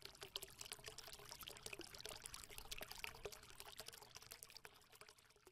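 Faint sound of water pouring and trickling, made up of many small drips and splashes, which fades out near the end.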